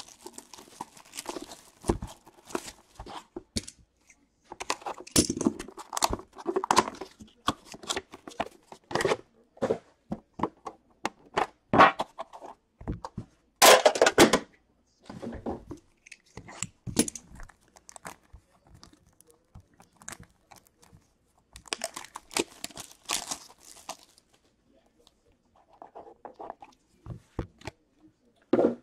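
Plastic shrink wrap being torn and crinkled off a box of Upper Deck The Cup hockey cards, followed by packaging and cards being handled, in irregular crackling, rustling bursts. The loudest burst comes about halfway through.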